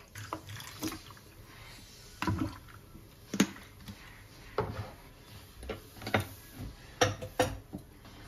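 Kitchen handling sounds: several separate sharp taps and knocks of plastic food containers and a sauce bottle being set down and moved about on a kitchen counter and cutting board.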